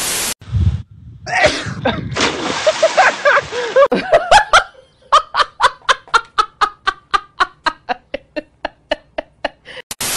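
A woman laughing uncontrollably, ending in a long run of short "ha" bursts at about four a second. A short burst of TV-static hiss comes at the start and again at the end.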